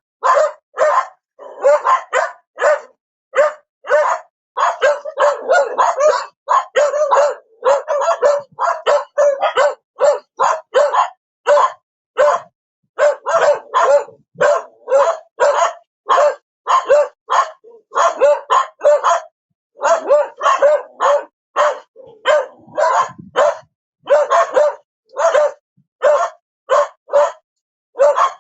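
A dog barking again and again: short single barks and quick runs of barks, with brief gaps between them.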